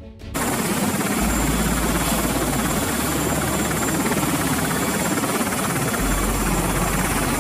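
Helicopter running close by: a dense, steady rush of rotor and engine noise that cuts in suddenly just after the start, with a thin high whine on top.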